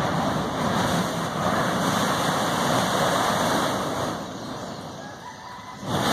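Volcanic gas jetting out of a new Kilauea lava fissure with a loud, rushing noise like a blowtorch. It eases off about four seconds in and surges back sharply near the end.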